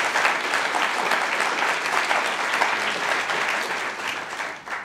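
An audience applauding, a dense mass of handclaps that dies away near the end.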